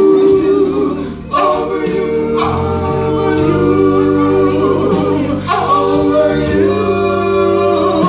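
Live soul band playing, with sustained sung notes over the instruments.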